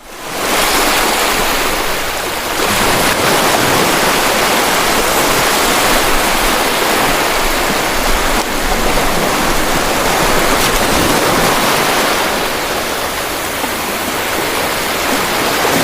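Loud, steady rushing noise spread evenly across low and high pitches, swelling in within the first half second and then holding without a break.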